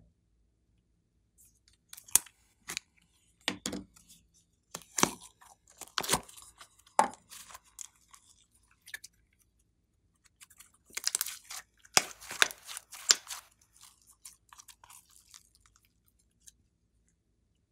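Glossy slime stretched and pulled by hand, giving off sticky clicks, pops and crackles in two flurries, the second denser.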